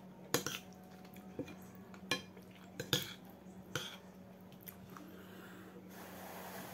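Metal spoon clinking and scraping against a plate as food is scooped up, with several sharp clinks over the first four seconds.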